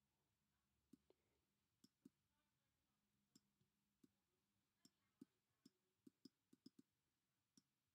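Faint, irregular clicks and taps of a stylus on a tablet screen during handwriting, with a quicker run of clicks about six seconds in.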